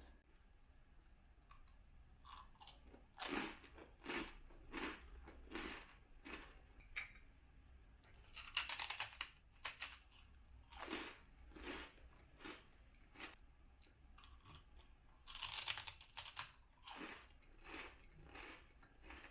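Someone biting into and chewing crunchy food close to the microphone. A few loud crunching bites come among regular chewing crunches.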